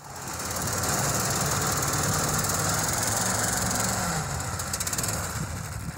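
Small engine of a tracked motor tow (motobuksirovshchik) running steadily, its pitch wavering slightly about midway.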